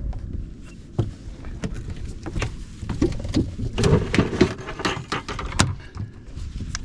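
Irregular knocks and clatter on a small fishing boat, gear and feet bumping the deck and hull while the angler reaches for the landing net with a snook hooked, heaviest around the middle.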